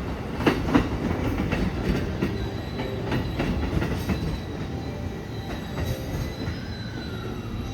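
E257 series electric train running out of the station: wheels clacking sharply over rail joints in the first second, then a steady rumble with a thin, high wheel squeal, slowly growing quieter.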